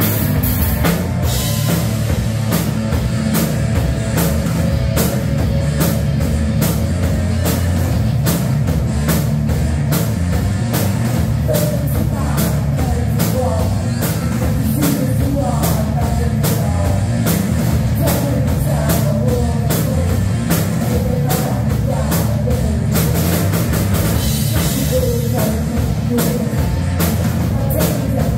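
Live heavy rock band playing loud: distorted electric guitars, bass guitar and a Tama drum kit with fast, driving drum and cymbal hits, and a singer's voice over the top.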